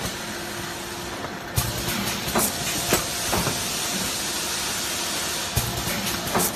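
Rotary plastic cup sealing machine running: a steady hum with sharp clacks from its sealing and cutting head. A hiss starts about one and a half seconds in and stops with a knock some four seconds later.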